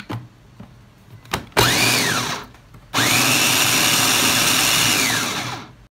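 Electric mini food chopper blending chunks of onion, peppers and tomato: after a few light clicks, a short burst of the motor about a second and a half in, then a longer steady run from about three seconds that winds down near the end. The motor's pitch rises as it spins up and falls as it stops each time.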